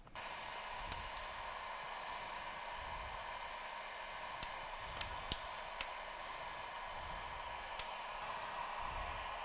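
Heat gun blowing steadily, shrinking heat-shrink tubing around a battery pack; it comes on right at the start. A few faint sharp clicks sound over it.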